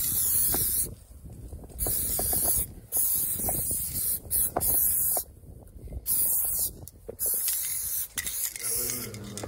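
Aerosol spray-paint can spraying in repeated short bursts of hiss, each under a second long with short gaps between, and faint knocks in the gaps.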